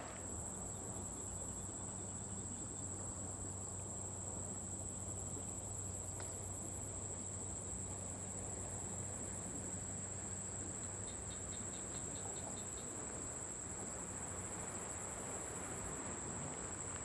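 Insects trilling in a continuous, steady, high-pitched chorus, with a second, higher trill coming and going, and a short run of quick ticks about eleven seconds in.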